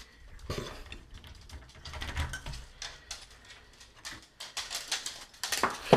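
Irregular light taps, clicks and rustles from a mobile phone being handled and moved about.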